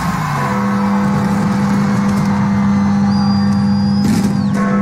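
Big Ben, the Great Bell of the Elizabeth Tower, striking midnight: a deep bell stroke shortly after the start whose low hum rings on, then the next stroke about four seconds in. Beneath it is crowd noise, and a thin rising whistle of a firework runs from about three seconds in.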